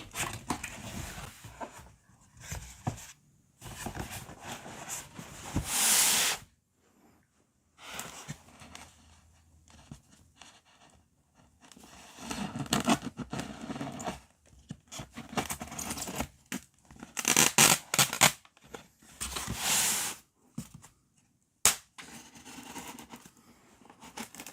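A large cardboard box being opened by hand: irregular bursts of tape and cardboard tearing and scraping, separated by short pauses, with a single sharp click near the end.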